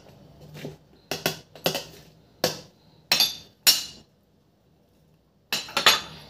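Metal spoon clinking against a glass blender-chopper bowl: several sharp, separate clinks in the first four seconds, a short pause, then two more a little before the end.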